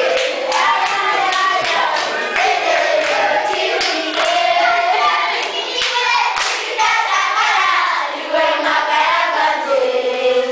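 A group of children singing together while clapping their hands.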